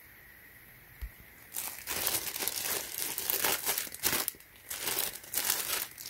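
Plastic packaging crinkling and rustling in irregular bursts as it is handled, starting about a second and a half in.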